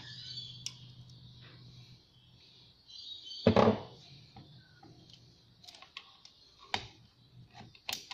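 Small metal clicks and knocks from hand work inside an RD28 diesel injection pump, as its internal parts are worked loose with a pickup tool. One louder clatter comes about three and a half seconds in, with a few sharp clicks near the end.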